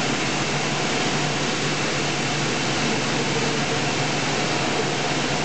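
Toshiba BTD 13R22 horizontal boring machine running with a steady mechanical hum and a constant low drone while its rotary index table turns.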